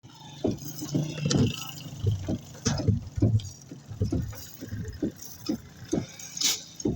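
Irregular knocking and clattering, roughly one or two knocks a second, over a low steady rumble, typical of work at a road construction site.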